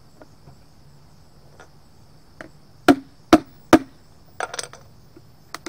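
Claw hammer striking the plastic rim of a metal paint can: three sharp knocks about half a second apart, then a few lighter clicks.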